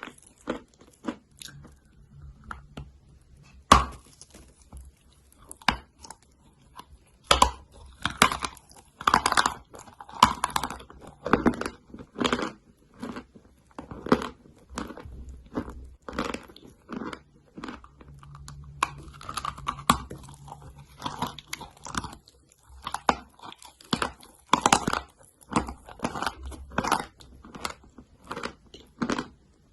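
A person biting and chewing chalk, close-miked for ASMR: a continuous run of dry, irregular crunches, with a sharp loud bite about 4 seconds in and busier spells of crunching in the middle and near the end.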